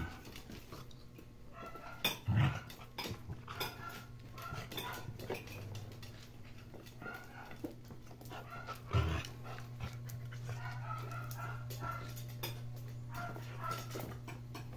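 A grown dog and puppies play-fighting on a tile floor: short, high puppy yips and squeaks, with scuffling and clicking on the tiles and a couple of dull thumps. A steady low hum runs underneath, stronger in the second half.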